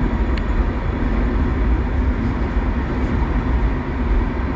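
Passenger train running with a steady low rumble and a constant hiss.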